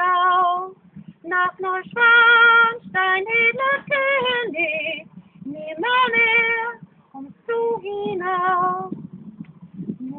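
A high solo voice singing a melody, holding notes with a slight vibrato in phrases broken by short pauses.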